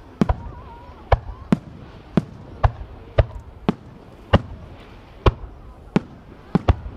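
Aerial fireworks display: about a dozen sharp bangs from shells, coming roughly two a second and some in close pairs, over a low rumble.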